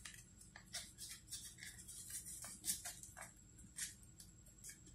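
Origami paper crinkling and rustling in short, irregular crackles as fingers tuck flaps and crease the folded modules.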